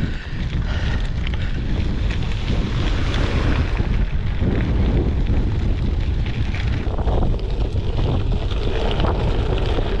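Wind buffeting a handlebar action camera's microphone on a moving gravel bike, a loud, steady rumble, with the crackle of tyres rolling over loose gravel.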